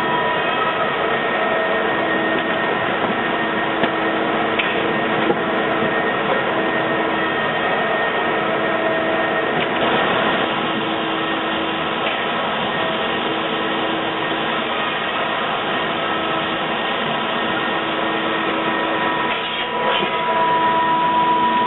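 Ledinek Eurozink 12 finger-jointing line running: a steady mechanical hum of motors and extraction with several constant tones and a few faint clicks. The noise dips briefly about 19 seconds in, then comes back slightly louder.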